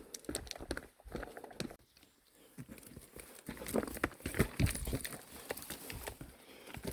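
Footsteps on a rough, rocky trail: uneven steps and knocks, with a brief pause about two seconds in.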